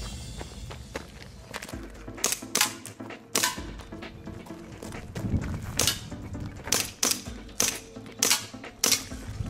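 Airsoft pistol firing single shots: about nine sharp cracks at an uneven pace, from about two seconds in, over background music.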